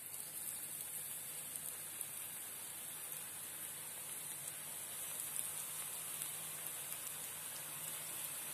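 Hot oil sizzling and crackling steadily as handfuls of onion pakoda batter deep-fry in a pan. The sizzle grows a little louder near the start as more batter goes in.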